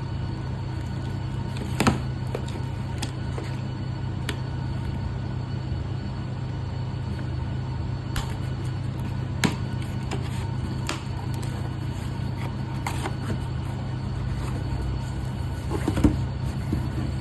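Background music with a steady low bass, over a few sharp clicks and taps from the JBL Flip 6's packaging being handled and opened. The loudest of these come about two seconds in, about halfway through and near the end.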